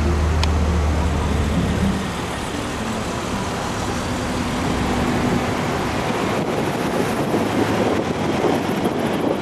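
Traffic noise from a slow queue of cars leaving a parking lot: a nearby engine's low, steady hum for the first two seconds, then a constant even noise of engines and tyres.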